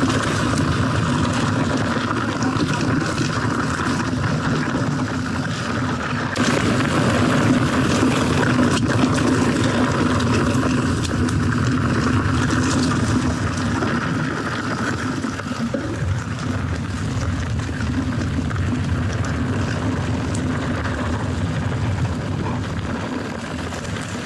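Commencal Meta TR mountain bike ridden down a dirt singletrack: steady wind rush on the body-mounted camera's microphone over the rumble of the tyres on dirt, with small clicks and rattles from the bike. The sound changes abruptly about six seconds in.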